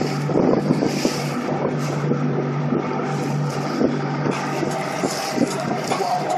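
Motor of a Nitro fish-and-ski boat running steadily at cruising speed, with wind buffeting the microphone.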